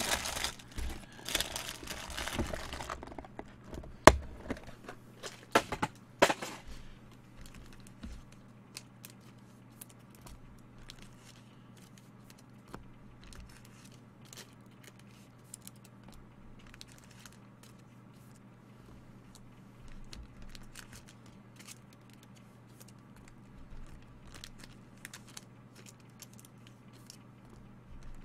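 Plastic trading-card wrapper crinkling and tearing open for the first few seconds, then a few sharp clicks about four to six seconds in, followed by faint, scattered rustling and ticking as the cards are handled.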